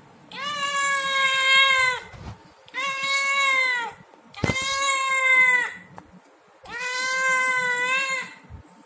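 Siamese-pointed kitten meowing for food: four long, drawn-out meows, each about a second and a half, with the pitch rising a little then falling away at the end.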